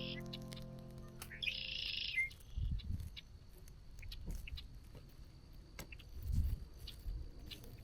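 A bird's harsh, raspy call, heard about a second and a half in and ending with a falling tail, with a similar call just before it. Faint low rumbles and a few ticks follow.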